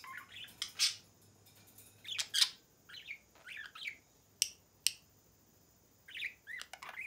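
Male budgerigar chattering to its reflection in a mirror: short, broken bursts of warbling chirps and squawks, with two sharp clicks about four and a half and five seconds in.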